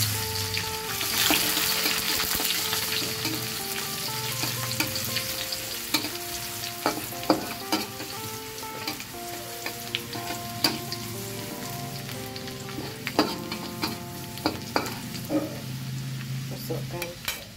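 Garlic and dried anchovies (ikan bilis) sizzling in hot oil in a wok, stirred with a metal spatula that scrapes and taps sharply against the pan every few seconds.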